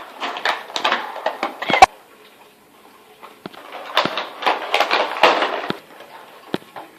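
Plastic and cardboard toy packaging being handled and pulled apart: two bursts of rustling and clicking, with a sharp snap a little under two seconds in.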